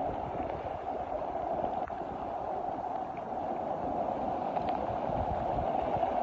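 Steady rushing of flowing rainwater, with a few faint ticks.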